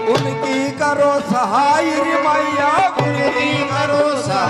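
Live Hindu devotional bhajan: a man singing a wavering, ornamented melody into a microphone over dholak hand-drum strokes and steady held accompanying notes.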